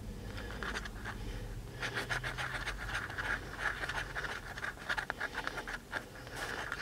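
A coin scratching the coating off a paper scratch-off lottery ticket: quick, repeated scraping strokes.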